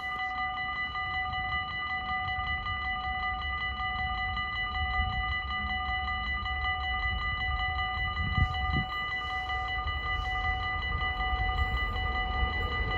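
Dutch level-crossing warning bells ringing fast and steadily, several bells sounding together, warning that a train is coming. Near the end the rumble of the approaching train begins to rise under them.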